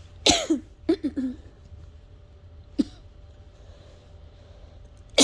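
A person's asthmatic coughing fit: a harsh cough shortly after the start, two quick coughs about a second in, a short single cough near three seconds, and another starting right at the end.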